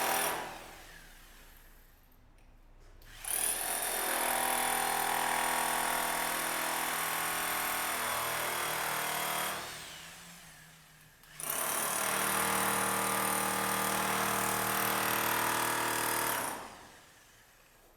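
An electric power tool's motor running at a steady speed in two long runs of about six and five seconds, winding down gradually after each. The tail of an earlier run fades out at the start.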